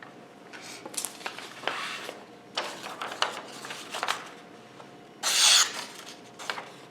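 Freshly stropped kitchen knife slicing through a sheet of paper: several short rasping swishes, the loudest about five seconds in.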